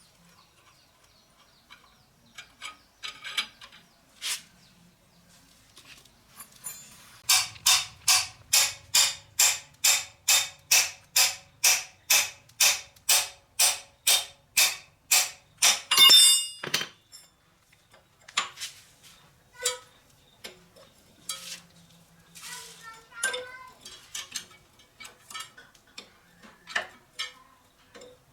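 A hand tool worked on metal in about twenty even strokes, a little over two a second, in the middle of the stretch, with scattered clicks and knocks of tools being handled before and after.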